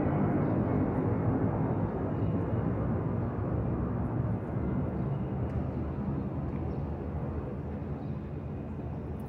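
Twin-engine jet airliner passing overhead, its engines making a steady rumble that fades evenly as the plane moves away.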